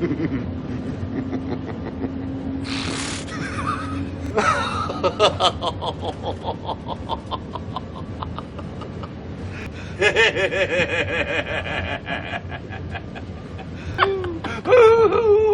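People laughing in fits of rapid, repeated 'ha-ha' pulses, starting about four seconds in and louder from about ten seconds in, over a steady low rumble.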